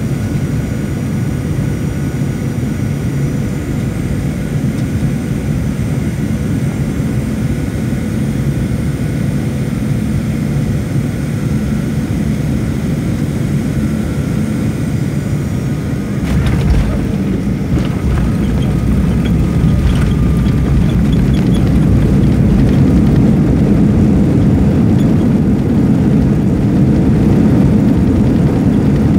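Airliner cabin noise on landing: a steady jet-engine drone with faint high whines. About 16 seconds in comes a short jolt as the wheels touch down on the runway. The low rumble then grows louder during the rollout.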